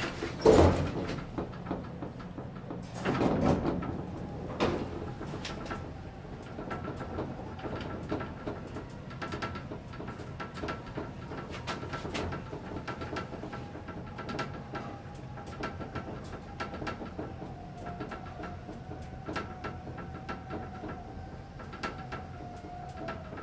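1975 KONE inclined traction elevator: the doors shut with a couple of heavy knocks in the first few seconds, then the car travels with a steady running noise, a faint steady tone that sags slightly near the end, and many small clicks and rattles.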